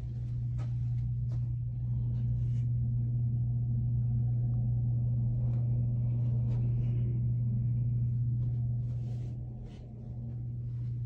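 A steady low hum with a few light clicks scattered over it.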